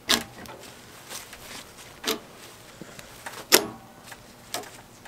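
Four sharp clacks, the loudest about three and a half seconds in, as a throttle lever and grip assembly is pushed and worked onto a metal tiller handle tube.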